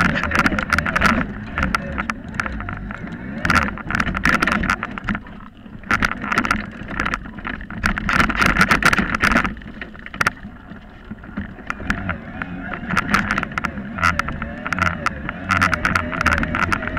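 Mountain bike rolling over a bumpy grass track: the bike and its camera mount rattle and knock continuously over the rough ground. The noise eases briefly about five seconds in and again around ten to twelve seconds.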